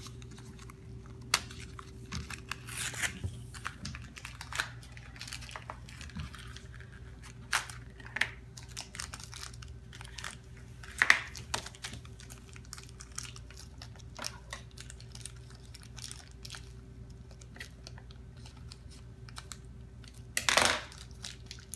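Crinkling and tearing of a foil blind-bag packet and plastic toy packaging being opened by hand, in scattered short crackles and rustles, louder about eleven seconds in and again near the end. A faint steady hum lies underneath.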